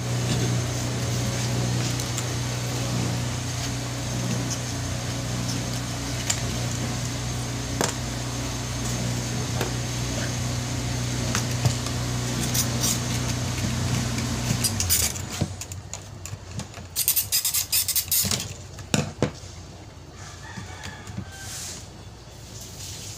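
Electric fuel pump running with a steady hum while it is tested as the suspected cause of a hard-starting fault, switched on suddenly and cutting off about fifteen seconds in. A quick run of sharp clicks follows a couple of seconds later.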